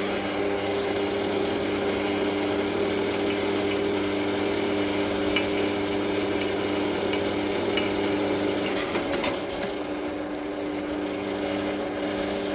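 Electric drill running steadily as a small 3 mm bit drills a pilot hole into a steel railway track, its motor hum wavering briefly about nine seconds in.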